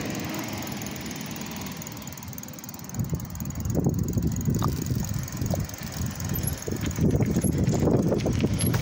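Wind buffeting the phone's microphone while riding a bicycle: a gusty low rumble that grows much stronger from about three seconds in.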